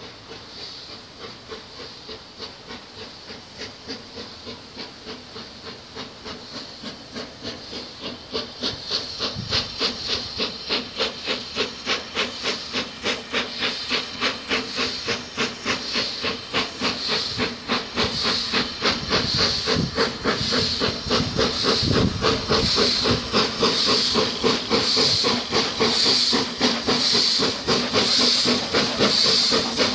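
BR Standard Class 4MT 4-6-0 steam locomotive No 75078 approaching under steam with a passenger train: a steady rhythm of exhaust chuffs with steam hiss, growing louder as it nears, with a clear rise in loudness about eight seconds in.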